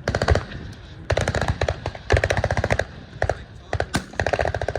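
Machine guns firing on full auto in short bursts, about four bursts of rapid shots with a few single shots between them.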